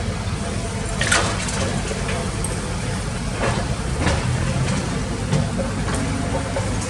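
Heavy diesel excavator engine running with a steady low rumble, with crunching knocks from the bucket working dirt: a sharp one about a second in and two softer ones around the middle.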